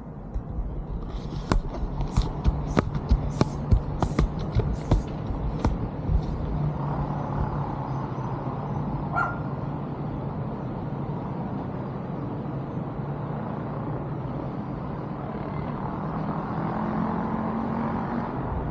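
A quick run of sharp clicks, about two a second, over the first six seconds, over a steady low rumble like distant traffic with a faint hum.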